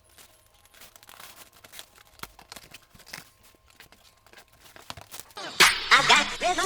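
Faint scattered crinkling and ticking, then, about five and a half seconds in, a much louder run of quick sweeping whooshes that glide in pitch.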